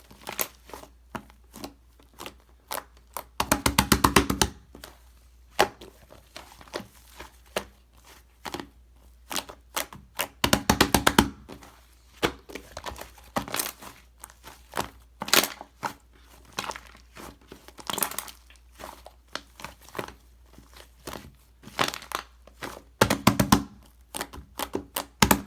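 White shaving-foam slime being squeezed and pressed by hand, with scattered clicks and pops of trapped air. Three louder bursts of rapid crackling come about four seconds in, around eleven seconds, and near the end.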